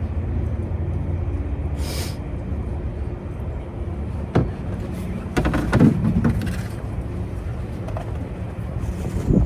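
A vehicle engine idling steadily, with a few short knocks and a brief clatter in the middle.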